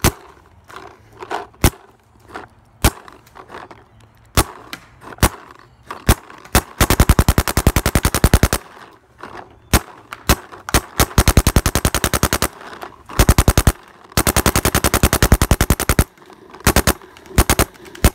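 Paintball marker firing: scattered single shots for the first several seconds, then rapid strings of shots lasting one to two seconds each from about seven seconds in, and a few single shots again near the end.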